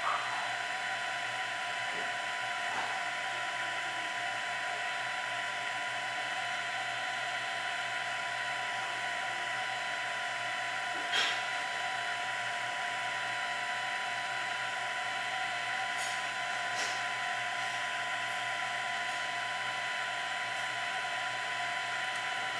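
Printrbot Play 3D printer running, giving a steady high-pitched mechanical whine, with one sharp click about eleven seconds in.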